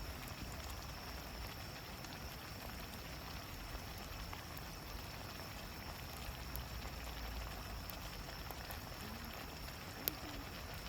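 Campfire cooking: faint crackles and pops over a steady hiss and low rumble, with one sharp pop about ten seconds in.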